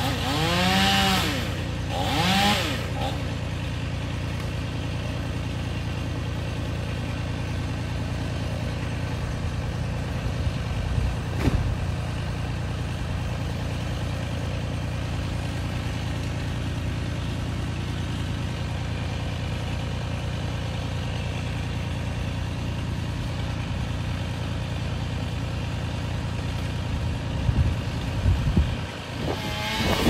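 An engine running steadily at a low, even drone, with a single sharp knock about eleven seconds in. In the first three seconds, pitched sounds rise and fall over the drone.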